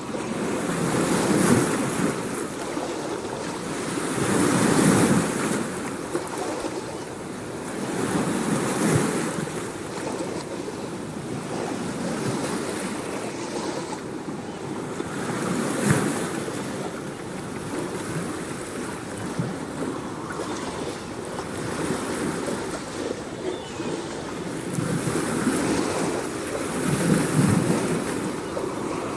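Surf-like rushing of waves, swelling and fading every few seconds.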